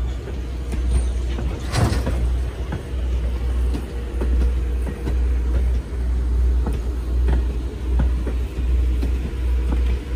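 A passenger train rolling past close by, with a heavy low rumble and irregular clicks and knocks from the wheels on the track. A sharp burst of noise comes about two seconds in.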